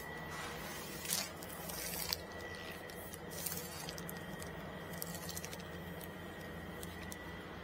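Paintbrush and paint shield being worked along a baseboard: a few soft swishes in the first few seconds, then faint ticks, over a steady low hum and a thin high whine.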